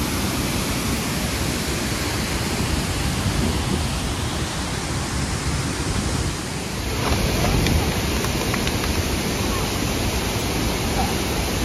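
Steady rushing water of a waterfall and its river, a dense even hiss that grows a little louder about seven seconds in.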